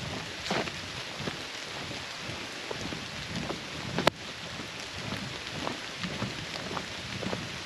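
Steady outdoor hiss with scattered soft crackles and taps, and one sharp click about four seconds in.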